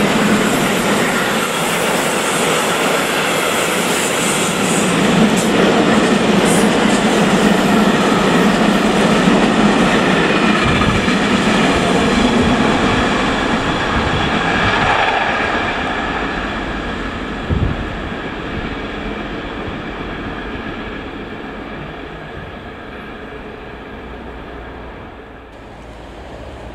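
Container freight train's wagons rolling past close by: a steady rumble and clatter of wheels on rail that fades away over the second half as the train recedes, with a single sharp knock about two-thirds of the way through.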